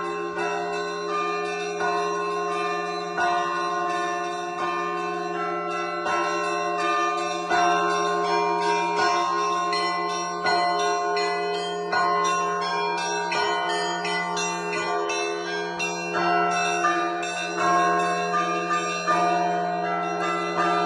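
Russian Orthodox church bells rung by hand by one bell ringer: quick, dense strikes of the smaller bells, several a second, over the steady hum of a larger bell.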